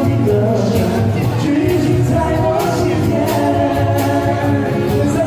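Live band playing a pop song, with a vocalist singing held, sustained notes over a steady beat.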